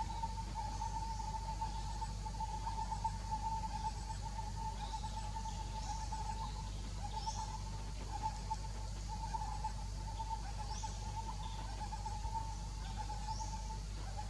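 A steady, slightly wavering high hum from the surrounding wildlife. Short rising bird chirps come every couple of seconds over it.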